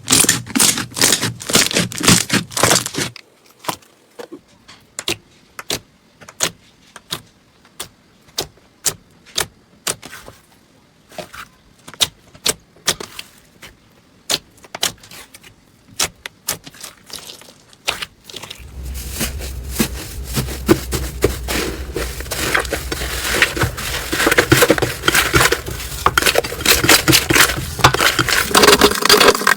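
Slime being squeezed and pressed by hand, giving sharp wet pops and clicks. They come thick at first, thin out to single pops for a long stretch, then turn into dense crackling over a low hum about two thirds of the way through.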